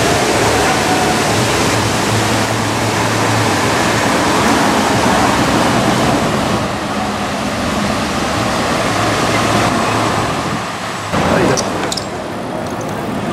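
Mercedes-AMG GT's twin-turbo V8 running low and steady as the car rolls slowly past in city traffic, under a loud, even wash of street noise. About eleven seconds in, a short louder sound stands out.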